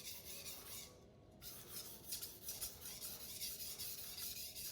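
Knife blade being stroked over a King Deluxe 800-grit waterstone: a soft, repeated gritty rubbing, with a brief pause about a second in.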